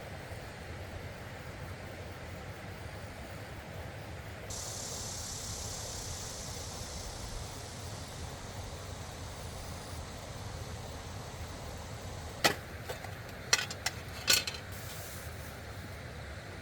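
Steady rushing of a nearby stream, with a higher hiss joining for several seconds and a few sharp clicks or knocks about twelve to fourteen seconds in.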